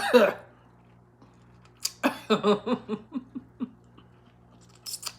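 A woman's loud burp right at the start, falling in pitch, then about two seconds in she laughs in a quick run of short pulses. A few small mouth clicks near the end.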